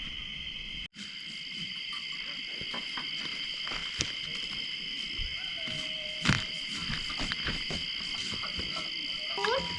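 Steady, shrill chorus of crickets in several high bands, cutting out for an instant about a second in. A few sharp clicks and a short, low held call about six seconds in sound over it.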